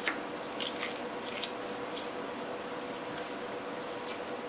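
Masking tape being peeled slowly back off a painted model truck cab, with short, irregular crackles as it lifts from the paint. A faint steady hum sits underneath.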